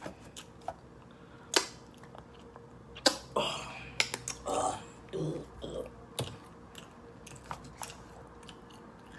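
Close-miked eating and food-handling sounds: chewing with scattered sharp clicks, the loudest about a second and a half in and another about three seconds in, and short rustles as wings are pulled from a foil pan and a plastic ranch bottle is handled.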